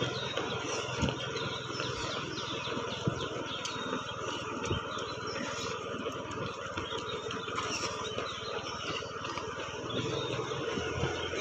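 Many small birds chirping over a steady low background hum, with a few scattered thumps.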